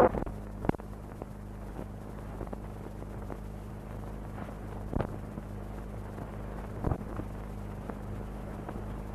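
Steady low electrical hum with a faint hiss and a few scattered clicks and pops: the background noise of an old 16 mm film soundtrack with no programme sound on it.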